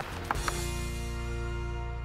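Background music: a held, sustained chord with a deep bass that comes in about half a second in.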